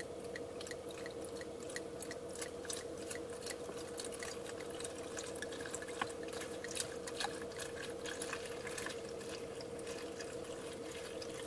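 Liquid being poured from a bottle into a smaller container, trickling and dripping with scattered small clicks and glugs. A steady hum runs underneath, with faint regular ticking in the first few seconds.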